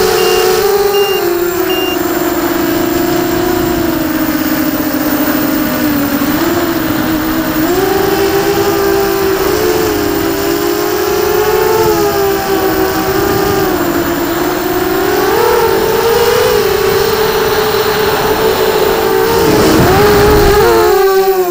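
QAV250 racing quadcopter's brushless motors and propellers whining in flight, heard from on board. The pitch rises and falls continuously with the throttle, and near the end it swings down and back up sharply.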